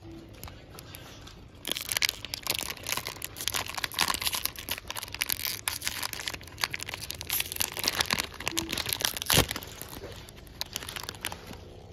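A foil blind-bag packet being crinkled and torn open by hand. It starts about two seconds in as a dense crackling with many small snaps, has one louder crack near the end, then dies down.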